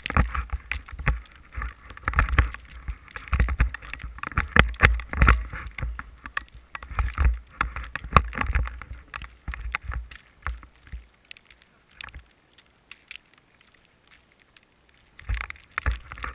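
Wind and blasting snow buffeting the camera microphone during a snowmobile run through deep powder, in irregular rumbling gusts. After about ten seconds it dies away almost to nothing for a few seconds, then picks up again near the end.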